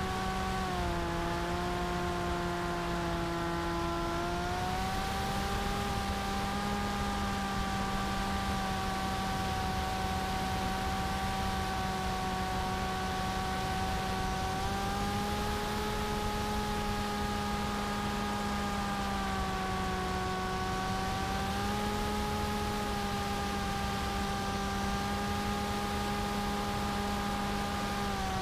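Electric motor and propeller of a TBS Caipirinha flying wing in flight, heard from the onboard camera: a steady whine over rushing air noise. The pitch dips about a second in, then steps up and down a few times.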